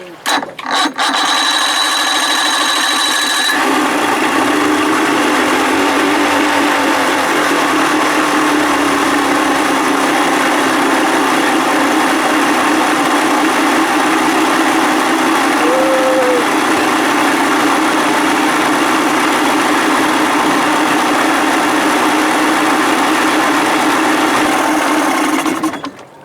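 Two-stroke outboard motor started and running steadily for about twenty-five seconds. Its note settles a few seconds in, and it cuts off abruptly near the end.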